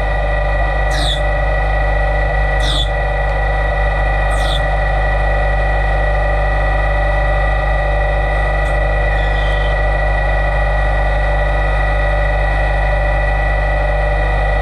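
LT-65 CNC lathe running a bar-fed job: a steady machine hum with a constant whine. Brief high squeals falling in pitch come about every one and a half to two seconds early on, with a fainter one about two-thirds of the way through.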